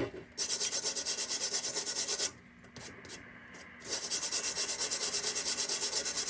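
Rapid back-and-forth hand scrubbing with an abrasive on the metal of an old Embury No.2 Camlox lantern, about five strokes a second. It stops for about a second and a half in the middle, then starts again.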